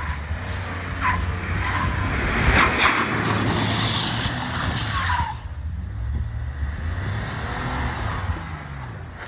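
Full-size SUV doing donuts in snow: its engine revving and its tyres spinning and throwing snow, with a few short high chirps. About five seconds in the noise drops away, leaving a lower, quieter engine hum as the SUV slows.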